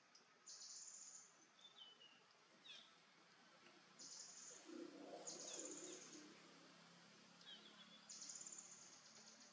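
Faint outdoor ambience: high buzzing insect calls in bursts of about a second, repeated several times, with short falling bird chirps between them. A fainter, lower sound comes in about five seconds in.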